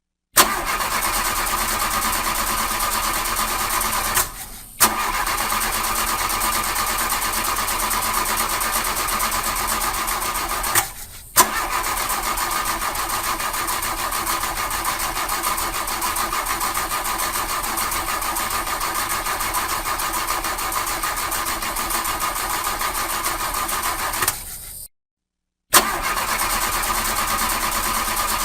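Starter motor cranking an old car's engine over and over without it firing: the car won't start. It cranks in four long spells, the first about 4 s, the next about 6 s, then a long one of about 13 s, then again near the end, each spell set off by a sharp click with a short break between them.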